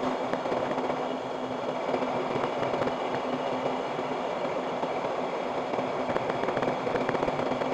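Metal lathe running steadily: a continuous machine hum with a constant tone and a few faint ticks.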